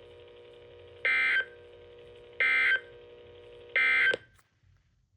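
NOAA Weather Radio receiver sending three short, shrill digital data bursts about 1.3 s apart over a faint steady hum, then cutting to silence after the third. These are the SAME end-of-message codes that close a broadcast tornado warning.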